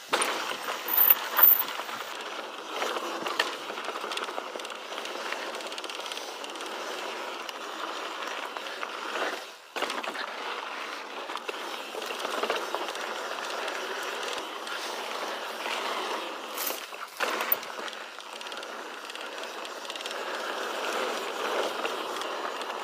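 Mountain bike riding along a dirt singletrack trail: tyres rolling over dirt and stones and the bike rattling, with two sharp knocks about a second in.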